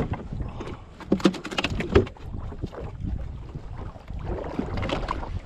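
Wind rumbling on the microphone in a small open fishing boat, with a cluster of sharp clicks and knocks about one to two seconds in from gear being handled.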